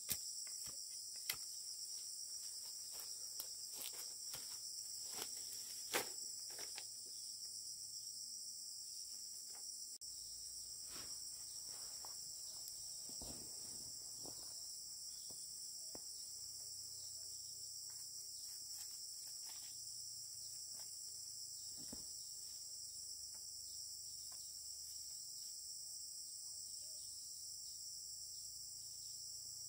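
Steady high-pitched insect chorus. A scattering of sharp clicks sounds over it during the first seven seconds or so.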